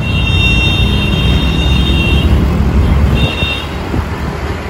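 Road and wind rumble from riding a motorcycle in traffic, with a high-pitched vehicle horn sounding twice: one long blast of about two seconds, then a short one about three seconds in.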